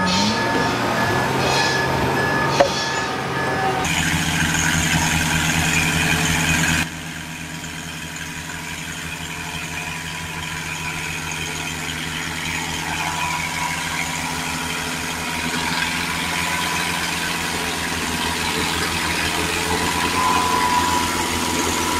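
Small farm tractor engines running steadily under load as they haul logs up a steep, rutted forest trail. The first few seconds hold heavy log-handling machinery, with one sharp clank about two and a half seconds in.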